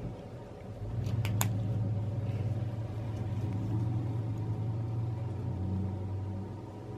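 A low, steady mechanical hum that swells about a second in and eases off near the end, with a few sharp clicks as it begins.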